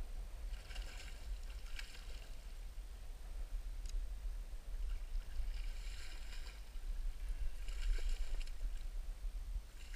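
A fishing reel being wound in three short bursts while a hooked pike is played close to the bank, over a steady low rumble of wind on the microphone.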